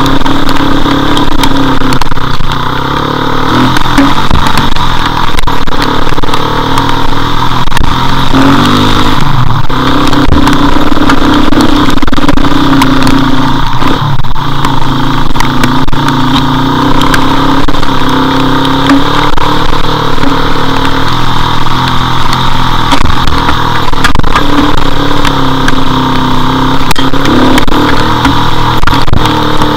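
Motorcycle engine running under way, its pitch shifting up and down with throttle and speed, under loud steady wind rush on the camera microphone while riding in the rain.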